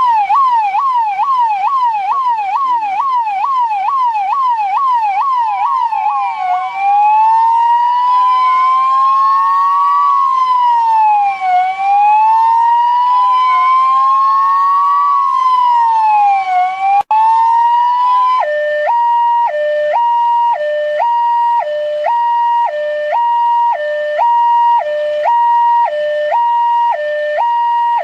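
Indian police electronic siren cycling through its tones: a fast yelp sweeping up and down about three times a second, then a slow wail rising and falling over a few seconds. After a brief cut about two-thirds of the way through, it changes to a steady two-tone hi-lo, high and low notes alternating about once a second.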